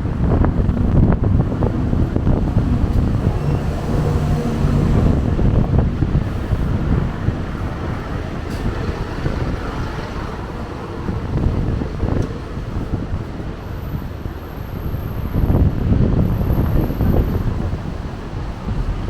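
Strong wind buffeting a small camera's built-in microphone, a heavy low rumble that swells and eases with the gusts.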